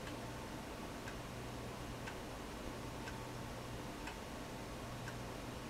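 Room tone: faint regular ticking, about one tick a second, over a steady low hum.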